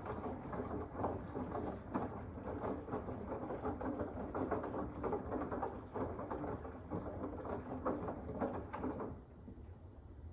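Samsung WW25B6900AW front-load washer running: a dense, irregular rattling noise over a steady low hum. The rattling stops about nine seconds in, leaving only the hum.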